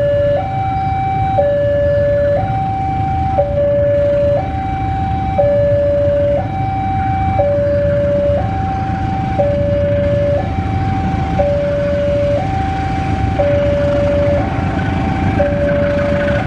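Railway level-crossing warning alarm sounding a steady two-tone signal, switching between a lower and a higher tone about once a second, warning that a train is coming through. Under it, the low rumble of a CC 201 diesel locomotive moving slowly past.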